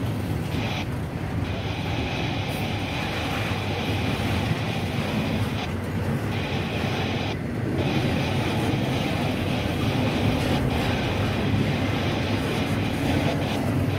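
BNSF double-stack intermodal freight train rolling past close by: the steady noise of its well cars' steel wheels running on the rails, getting slightly louder a little past halfway.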